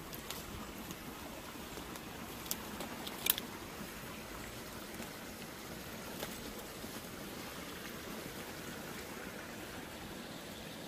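Small woodland stream running steadily, with a few brief sharp snaps and knocks from footsteps as someone steps across it.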